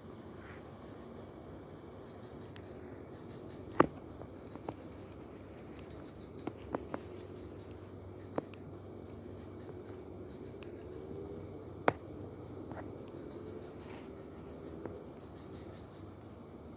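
Night insects chirring in a steady high chorus, broken by a few sharp clicks, the loudest about four seconds in and another near twelve seconds.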